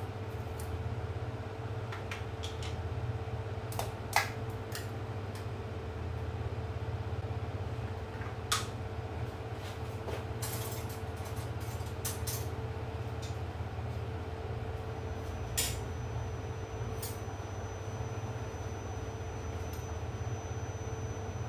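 Kitchen clinks and taps from a glass jar of curry powder being opened and handled: a handful of sharp clicks, the loudest about four seconds in. A steady low hum runs underneath.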